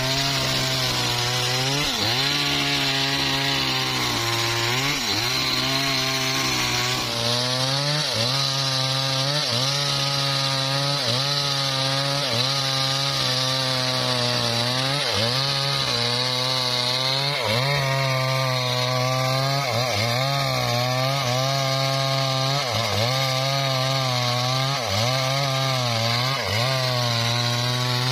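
Homemade engine-driven circular saw cutting through a hardwood log: a steady, continuous engine note that dips briefly in pitch and recovers about once a second, over the hiss of the blade in the wood.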